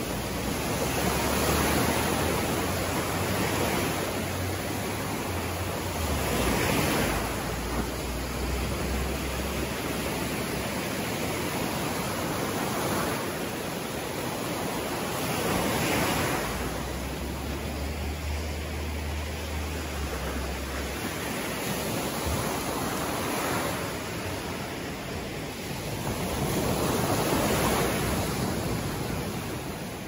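Small ocean surf breaking and washing up a sandy beach: a steady hiss of water that swells louder each time a wave breaks, every several seconds.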